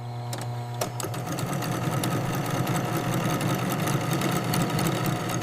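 Factory machine running steadily, a continuous low hum with a rapid, irregular clatter of clicks.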